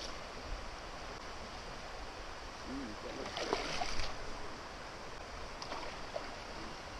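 Steady rush of river current, with a fish splashing and thrashing at the landing net about three and a half seconds in.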